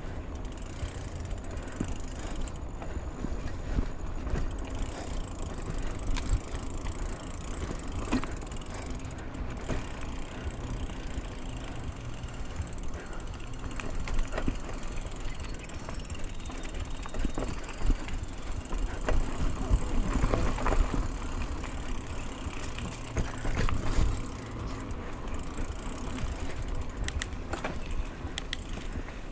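Mountain bike rolling along a dirt singletrack, its tyres crunching and its chain and frame rattling over bumps, with wind rumbling on the handlebar camera's microphone. The rattling grows louder for a few seconds past the middle.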